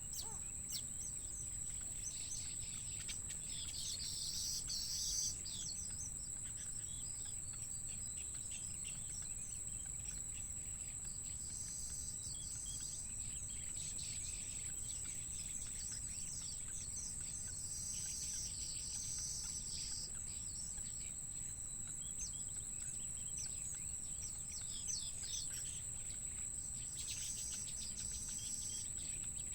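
Birds chirping in several short bursts over a steady high-pitched insect trill.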